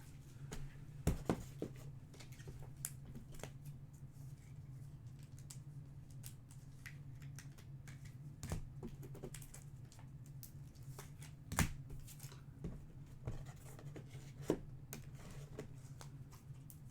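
Trading cards being handled and sorted by hand: scattered soft clicks, taps and slides of card against card, over a steady low hum.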